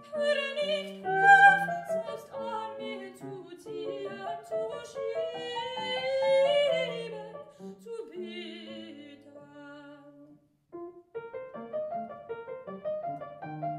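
A high solo voice singing a classical aria with vibrato over piano accompaniment. The music breaks off briefly about ten seconds in, then resumes.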